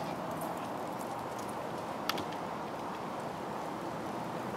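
Steady outdoor background hiss with one sharp click about two seconds in.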